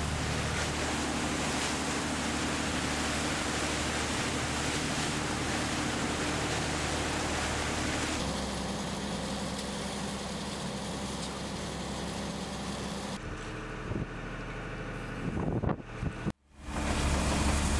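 A boat's engine running steadily, a low hum under a rushing hiss, heard in the wheelhouse. The sound changes abruptly twice, then drops out briefly near the end and returns louder.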